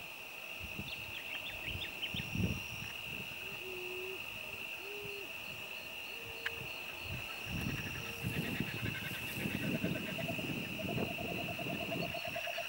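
Four short, low hooting calls about a second or so apart, over a steady high-pitched insect drone and low rumbling on the microphone. A fast pulsing trill comes in near the end.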